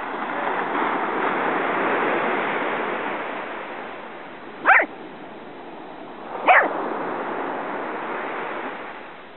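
A corgi gives two short, sharp barks, a little under two seconds apart, at a crab in the sand. Surf washes in behind, rising and falling in a rush.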